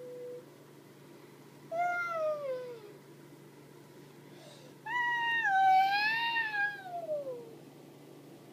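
A cat meowing twice: a short meow that falls in pitch, then a longer, louder one that wavers before sliding down at the end.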